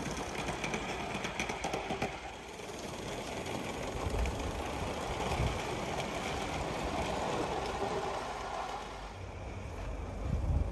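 A coal-fired 45 mm gauge live-steam model locomotive and its train of wagons running past, the wheels clicking quickly over the rail joints in the first couple of seconds, then a steady rushing run. A few low thumps, the loudest near the end.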